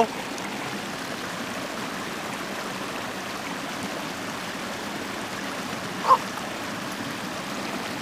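Shallow creek water rushing steadily over a sloping rock slab and through small cascades. A short vocal sound breaks in once, about six seconds in.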